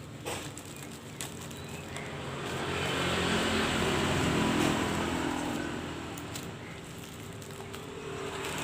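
A road vehicle passing: engine and tyre noise swells to a peak about halfway through and fades away. A few light clicks near the start.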